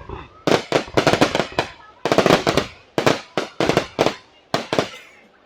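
Fireworks display: clusters of rapid sharp bangs and cracks from bursting shells, about one cluster a second, each dying away quickly.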